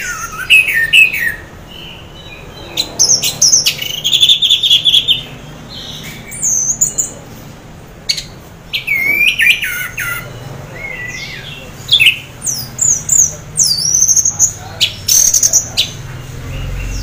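Orange-headed thrush singing in short bursts of varied, whistled phrases with sliding and falling notes and sharp clicks, broken by brief pauses. This is the 'teler' song that the owner attributes to a thrush half in breeding condition.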